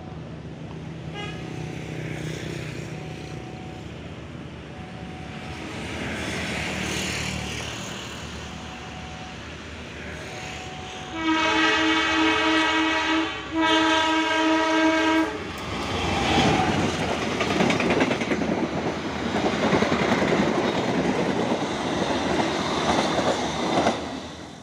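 Train running with a steady rumble, then the locomotive horn sounds two long blasts about halfway through, followed by loud wheel-on-rail clatter and rushing noise that cuts off near the end.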